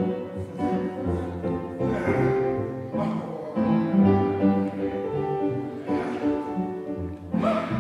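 Instrumental music with sustained, changing notes.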